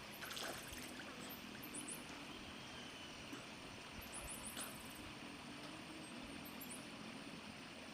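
Faint steady water noise, with brief high-pitched chirps now and then.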